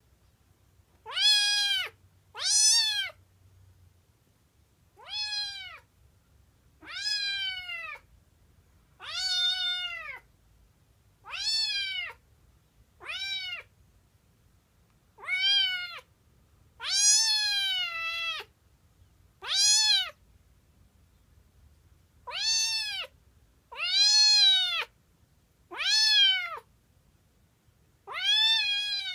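Exotic shorthair kitten meowing over and over, about fifteen short high-pitched meows one to two seconds apart. Each call rises and then falls in pitch.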